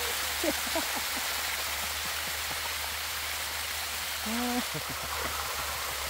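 Waterfall water rushing steadily over rock. A few short pitched sounds stand out near the start, and another comes about four seconds in.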